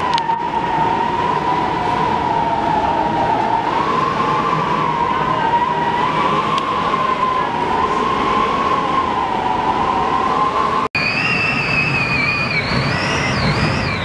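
Storm wind whistling across a cruise ship's open deck: a wavering whistle that drifts up and down in pitch over a steady rush of wind noise. The sound breaks off sharply about eleven seconds in, and a higher wavering whistle takes over.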